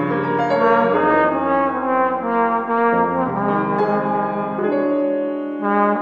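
Flugelhorn playing a slow melody of long held notes over a recorded accompaniment.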